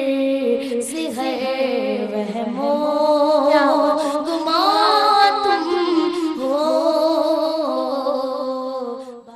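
A woman singing a slow melody as the programme's closing theme music, fading out near the end.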